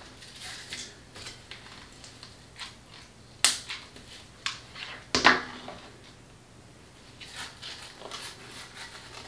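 Handling noises on a craft table: scattered light clicks and two sharper knocks about three and a half and five seconds in, then a soft rustle of tulle as the wreath is picked up near the end.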